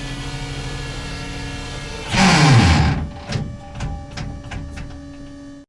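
Tank turret traverse mechanism running with a steady mechanical whine, then a loud surge whose pitch falls away as it stops about two seconds in. Several sharp metallic clanks follow over a lingering hum, and the sound cuts off abruptly.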